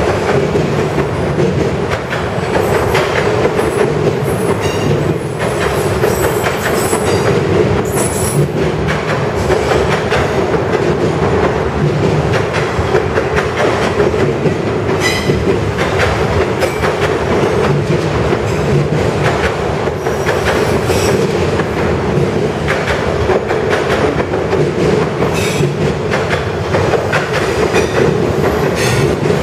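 Loaded autorack freight cars rolling past at close range: a steady rumble and clatter of steel wheels on the rails. Short high wheel squeals cut in now and then.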